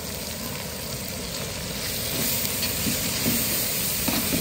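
Sliced onions sizzling steadily in oil in a large aluminium pot; about halfway through a metal ladle starts stirring and scraping through them and the sizzle grows louder.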